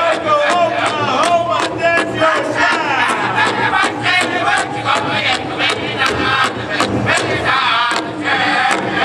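Powwow drum group singing a Grand Entry song: a large bass drum struck in unison at a steady beat of about three a second, under high-pitched group singing, with the noise of a large crowd behind.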